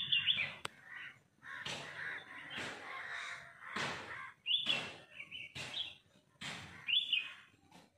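Crows cawing over and over, a string of harsh calls about a second apart.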